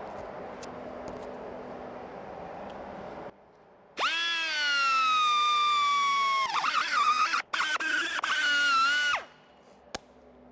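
Air-powered grinder with a flap wheel spinning up about four seconds in with a loud high whine. Its pitch sags and then turns ragged as the wheel bears on the metal edge of the cut-out, grinding away the factory shielding so the pinch-weld trim can fit. It stops abruptly after about five seconds.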